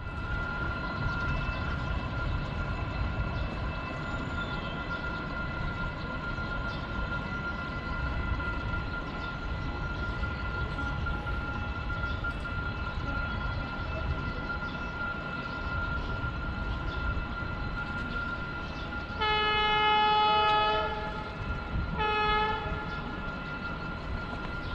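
An approaching train, with a steady low rumble and a steady high tone, sounds its locomotive horn: one long blast of about a second and a half, then a shorter second blast.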